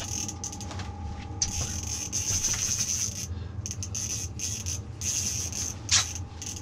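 Ice-fishing reel being cranked in short scratchy spells as a hooked fish is reeled up through the hole, with a sharp knock about six seconds in.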